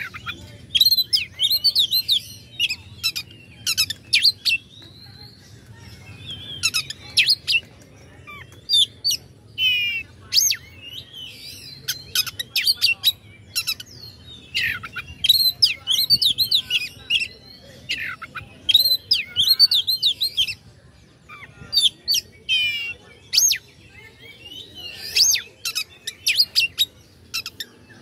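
Oriental magpie-robin singing a rapid, varied stream of sharp whistles and chattering notes, broken by short pauses. This is an aggressive lure song used to rouse rival magpie-robins into singing.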